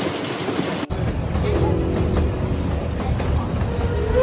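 Background music that cuts off about a second in, giving way to the low rumble of a Puffing Billy steam train's carriage running along the rails, with faint steady whistle tones joining in.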